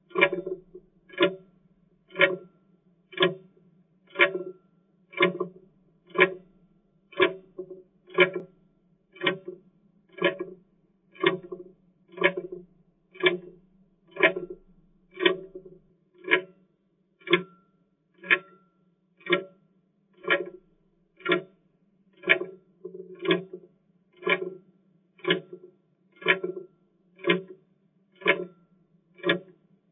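Clock ticking steadily, one tick a second, keeping time with a seconds countdown.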